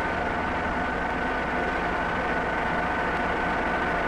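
Vertical boring mill running, a steady mechanical hum with a constant whine over it.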